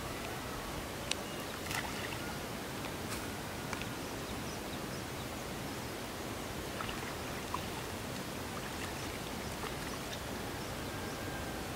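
Steady outdoor background hiss at the water's edge, with a few faint clicks and brief thin chirps scattered through it.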